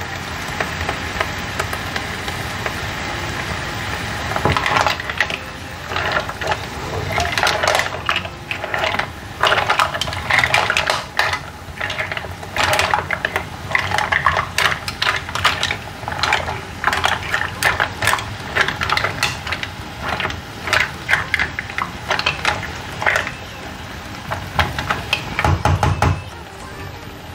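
Green-lipped mussel shells clattering and clicking against each other and the metal pan as they are tossed with a spatula, over a steady sizzle. The clatter starts about four seconds in and goes on in irregular bursts.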